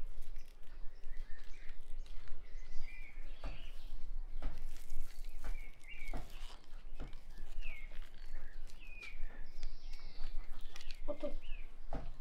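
Small birds chirping over and over in the background, with soft rustles and a few light knocks as hands tie a bunch of green onions with twine on a wooden board.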